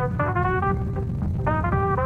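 Background music: a melody of short, quickly changing notes over a steady low bass.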